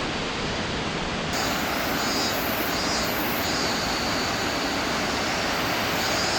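Steady rushing roar of Fukiware Falls, a broad waterfall pouring over rock. The roar jumps suddenly louder and brighter about a second in.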